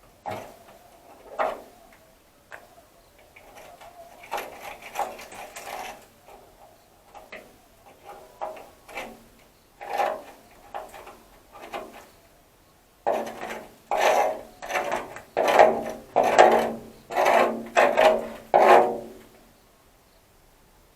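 A hand tool scraping on the rusted sheet metal of a truck cab in repeated rasping strokes. The strokes are scattered at first, then come about twice a second for several seconds in a loud run that stops a second or two before the end.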